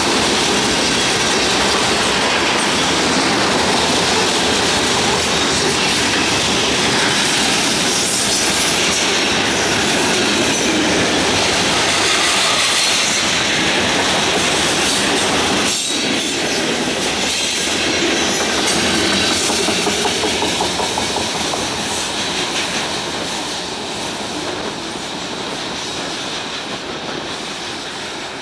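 Freight cars rolling past close by, their steel wheels clattering on the rails in a steady, loud noise that eases off over the last several seconds as the cars draw away.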